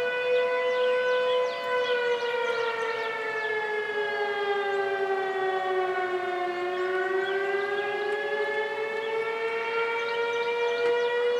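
Outdoor warning sirens sounding together. One siren's pitch slides slowly down through the middle and climbs back up, a slow wail, over the steady tones of another siren.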